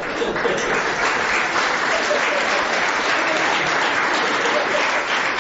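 Live audience applauding steadily after a comedy punchline.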